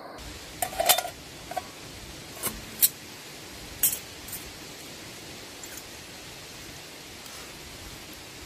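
Metal cookware clinking and clattering on a small backpacking stove: about eight sharp clicks in the first four seconds, over a steady hiss.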